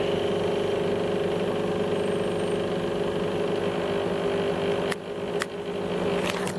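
Steady machine hum with a low, even drone. About five seconds in it drops away abruptly, and a few sharp clicks follow near the end.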